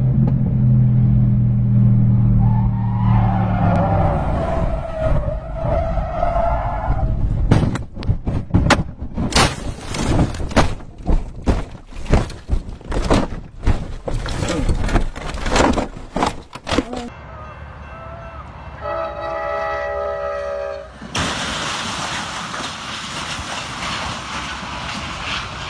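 Race-car engine at high revs on a track, dropping away, then a long string of loud crashing impacts and bangs as the car crashes. Later, several short blasts of a train horn, followed by the steady rushing noise of a passenger train passing.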